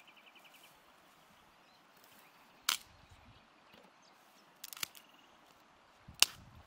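Three sharp clicks or knocks, the middle one a quick rattling cluster and the last the loudest, over faint steady outdoor background noise; a short, fast bird trill sounds at the very start.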